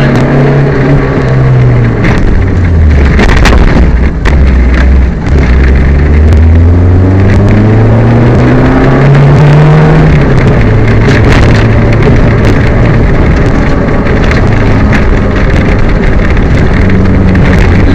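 Peugeot 205 rally car's engine under hard driving, heard from inside the car: revs dip, then climb steadily through a gear and drop at a gear change about ten seconds in before holding steady. A few knocks sound around four and five seconds in. The engine has a misfire.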